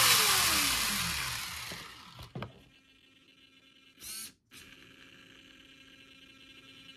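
Traxxas 4-Tec 2.0 VXL's brushless motor and drivetrain, fitted with high-speed gearing, spinning the wheels free on a stand and winding down to a stop over about two seconds, its pitch falling. A click follows, then a brief whir about four seconds in.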